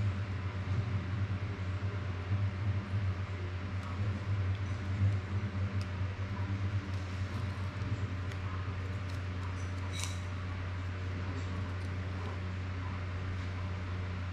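Steady low mechanical hum with a hiss, over light clicks of small plastic drone-frame parts being handled, and one sharper click about ten seconds in.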